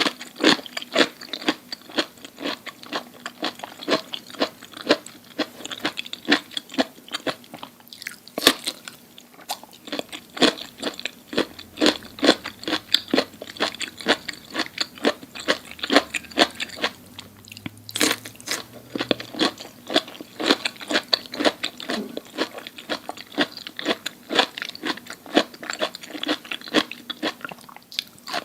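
Close-miked chewing of crunchy food: a steady run of crisp crunches, several a second, with a couple of sharper, louder bites partway through.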